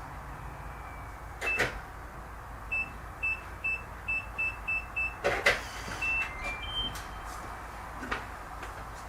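Electronic keypad door lock: about eight short beeps as a code is punched in, a clunk, then a short melody of tones at several pitches as the lock opens, with clicks around it.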